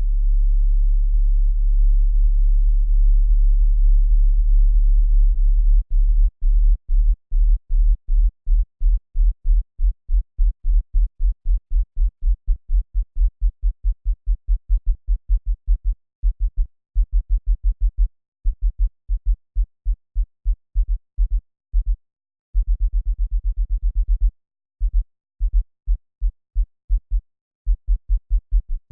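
A very low-pitched hum, like a diesel engine running in the distance, offered as an example of 'The Hum'. It holds steady for about six seconds, then pulses on and off a couple of times a second, with irregular gaps, until the end.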